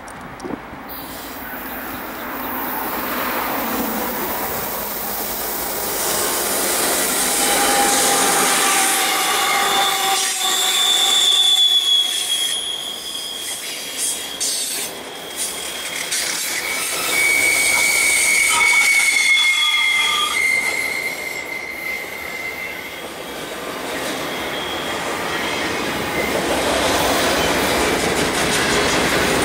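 A BNSF freight train of loaded autorack cars approaches and rolls past on a curve, growing louder over the first several seconds. Its wheels squeal against the rail in several high, steady tones through the middle of the pass, over the rumble and clatter of the cars.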